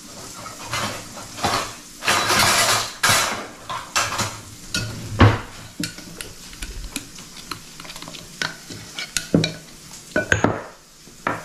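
Metal utensils rattling in a kitchen drawer, then a fork clicking and scraping against a glass bowl as it stirs thick waffle batter. Sausage sizzles steadily in a frying pan underneath.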